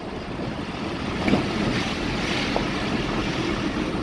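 Steady rushing noise of a car moving along a road: tyre and wind noise.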